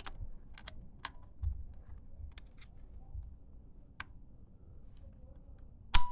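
Small clicks and taps of a laptop RAM module being handled and fitted into its slot, ending in one sharp, loud click near the end as the module is pressed down into its retaining clips.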